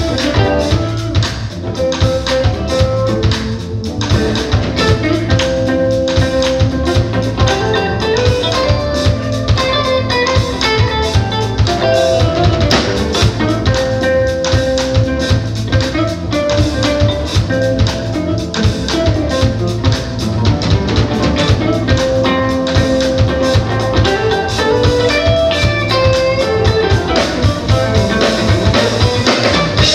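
Live smooth-jazz band playing: an electric guitar takes a melodic lead with sliding notes over bass and a drum kit.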